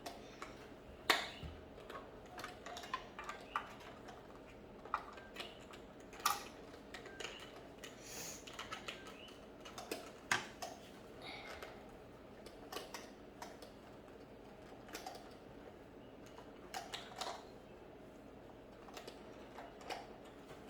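Small plastic toy pieces being handled: irregular clicks and taps, with a few sharper knocks about a second in, around six seconds and around ten seconds.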